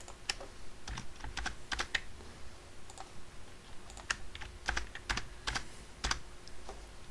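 Irregular clicking of computer keyboard keys, a couple of dozen sharp key presses spread unevenly, as comment blocks are selected and deleted in a code editor.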